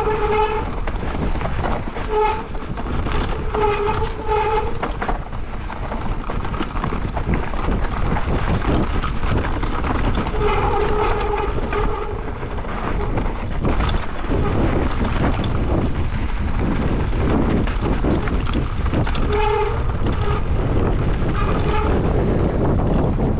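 Mountain bike running down a rough trail: continuous rumble and rattle of tyres and frame over rocks and dirt, with wind on the microphone. A steady pitched hum sounds in short bursts several times, each under about a second and a half.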